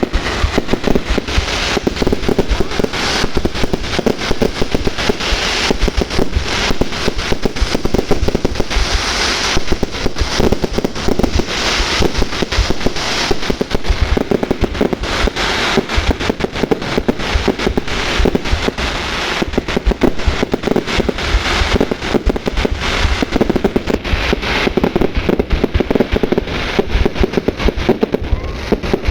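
Fireworks display: a dense, unbroken series of bangs and pops going off in rapid succession.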